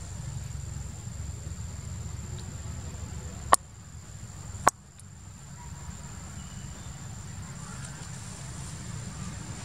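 Forest ambience: a steady high insect drone over a low rumble, broken by two sharp clicks a little over a second apart.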